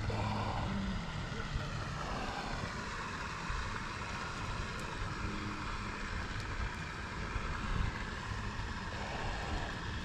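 A steady, distant engine drone whose pitch glides slowly.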